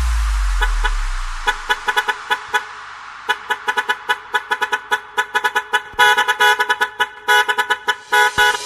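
Truck horn toots chopped into a stuttering rhythm in an electronic dance remix, opening over a deep sub-bass boom that fades in the first second or two. The short horn blasts come thicker and louder about six seconds in.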